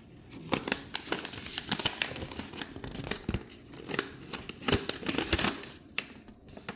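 Packaging being handled, rustling and crinkling in a run of irregular crackles and taps.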